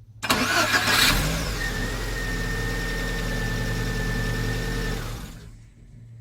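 Lada Kalina engine being started: the starter, freshly cleaned and lubricated to cure a squeak on starting, cranks briefly and the engine catches about a second in. It runs steadily for about four seconds, then the sound dies away about five seconds in.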